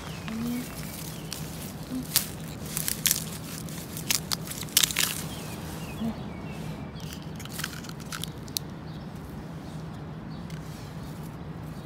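Dry bamboo leaf litter and stems crackling and crunching as someone pushes on foot through a dense bamboo grove, in irregular bursts of sharp crackles that are busiest in the first half.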